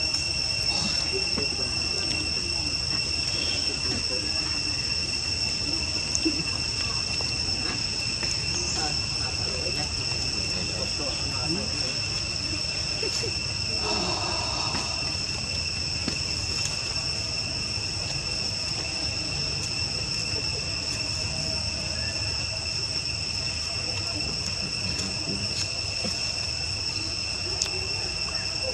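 Steady high-pitched insect drone, one unbroken tone that holds throughout.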